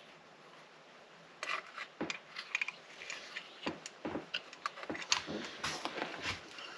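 Hand tools and small metal parts being handled during chainsaw assembly: a run of light clicks, taps and scrapes that starts about a second and a half in.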